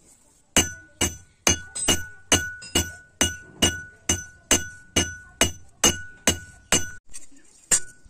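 Hand hammer striking a red-hot steel knife blade on a railway-rail anvil, hot forging, about two blows a second, each with a short metallic ring. The blows pause about seven seconds in, with one more near the end.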